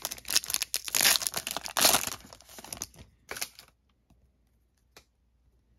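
A Panini Prizm football card pack's wrapper being torn open and crinkled in the hands for about three and a half seconds, then quiet but for one small click near the end.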